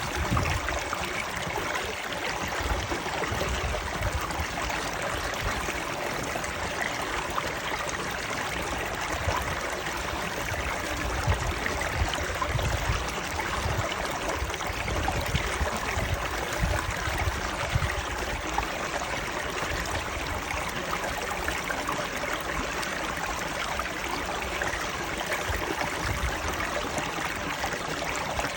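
Water of a stream running steadily, with a low rumble coming and going beneath it.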